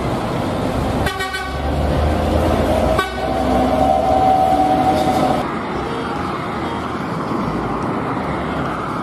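Large bus driving by with its diesel engine running and road rumble. A horn toots briefly about a second in, then sounds a held tone for about two seconds near the middle.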